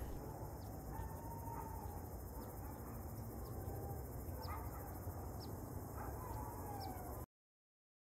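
Faint outdoor pond ambience: a low steady rumble with a faint long tone that slowly wavers and falls, and short faint high chirps about once a second. The sound cuts off abruptly near the end.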